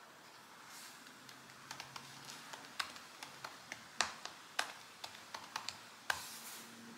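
Scattered clicks and taps on a computer keyboard, a dozen or so irregular strokes, with a brief rustle about six seconds in.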